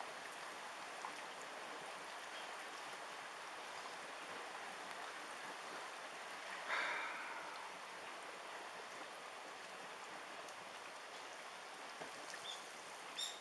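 Tsunami floodwater flowing through a flooded street, a faint steady rushing hiss. A brief louder noise comes about seven seconds in.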